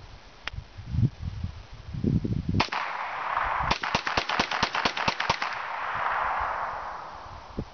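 Kel-Tec Sub2000 Gen 1.2 semi-automatic carbine fired once, then a rapid string of about a dozen shots in under two seconds. An echo trails off for a couple of seconds afterwards.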